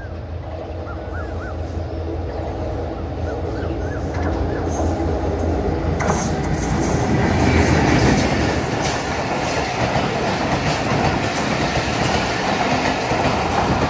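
Diesel locomotive hauling a passenger train approaches, its engine drone growing louder, and passes at speed about seven to eight seconds in. The coaches then run by with a rapid clatter of wheels over the rail joints.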